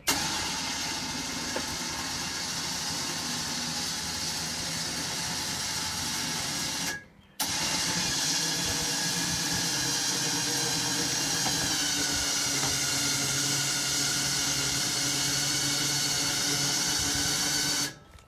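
A motor running steadily. It stops briefly about seven seconds in, starts again, and cuts off sharply near the end.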